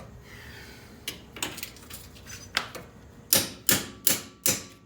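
Hand tools knocking on metal: a few scattered sharp clicks and taps, then four loud strikes in quick succession near the end, about two and a half a second.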